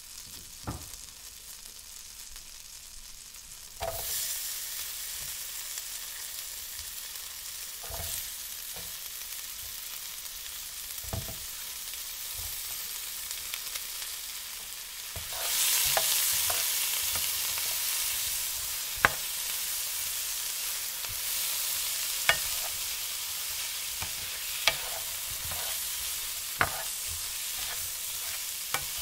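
Food frying and sizzling in a pan, with a steady hiss that gets louder about four seconds in and again about halfway through. Now and then a sharp click of a utensil knocks against the pan.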